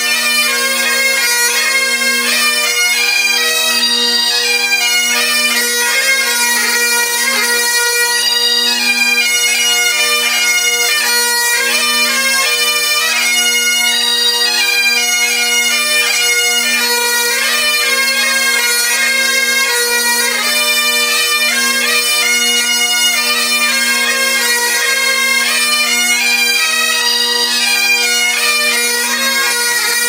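A pipe band's Great Highland bagpipes playing a tune. A changing chanter melody sounds over the continuous, unbroken hum of the drones.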